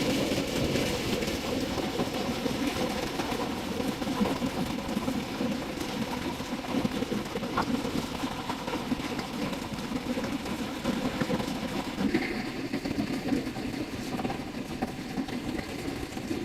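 A small engine running steadily, with a dense rattling drone.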